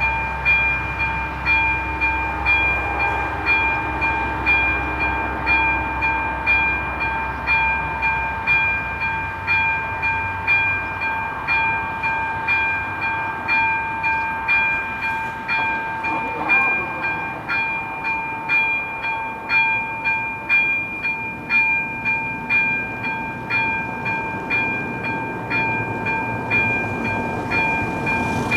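Electronic ZV02 level-crossing bell ringing a steady, evenly spaced ding a little more than once a second: the crossing's warning for an approaching train.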